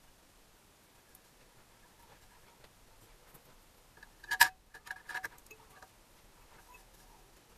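Near-quiet workbench handling with a few sharp metallic clicks and taps about four seconds in. A couple of lighter clicks follow, as small parts and a grease tin knock against the aluminium engine crankcase while a paper gasket is fitted over the crankshaft.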